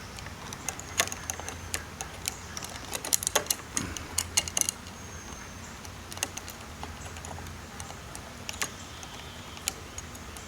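Small metallic clicks and light taps of machine screws and lock hardware being handled and started by hand into the deadbolt's mounting plate, busiest about three to five seconds in, over a steady low hum.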